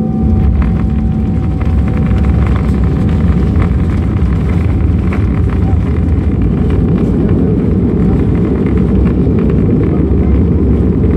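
Airliner's landing roll heard from inside the cabin: a loud, steady low roar of the engines and the wheels running on the runway as the plane decelerates after touchdown.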